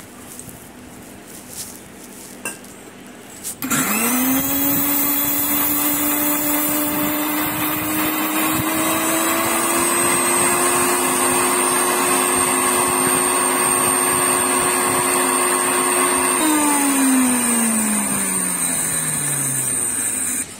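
Electric mixer grinder (mixie) grinding grated coconut and fennel seeds into a paste. Its motor starts about four seconds in with a quick rising whine and runs at a steady pitch. Near the end it is switched off and spins down with a falling pitch.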